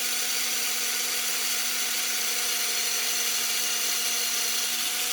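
Small electric drill running at a steady high speed, drilling out the posts that hold a diecast model car's base. It gives a steady whine over a hiss.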